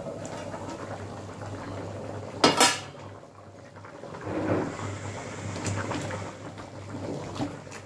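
Steel lid lifted off a kadai of simmering chicken curry, set down with one loud metallic clank a couple of seconds in. Then a ladle stirs and scrapes in the pan, with light clicks as the curry bubbles.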